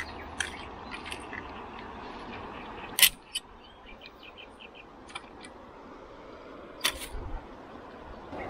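Sharp clicks and knocks of a landing net's metal frame and telescopic aluminium handle being handled and set up, the loudest about three seconds in and another near seven seconds, with a few smaller clicks between.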